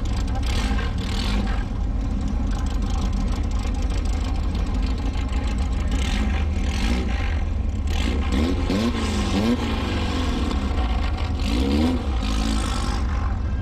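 Lamborghini Huracán's V10 running at a crawl, a steady low drone, with a few quick rises and falls in pitch in the second half.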